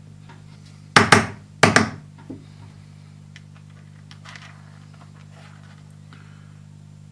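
Small machined steel parts and screws clattering as they are handled and set down: two quick rattling clatters about a second in, then a few faint clicks.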